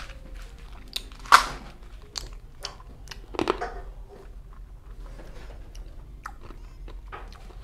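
Tic Tac mints being crunched and chewed close to the microphone: a few sharp crunches in the first few seconds, then only small, quiet clicks of chewing.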